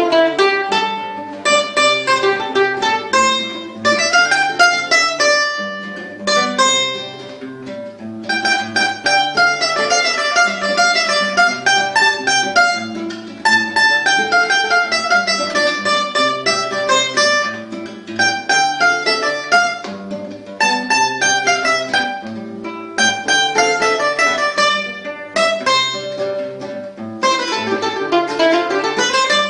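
Cavaquinho and nylon-string guitar (violão) playing a duet: fast runs of picked notes over the guitar's chords and bass notes, with short breaks between phrases.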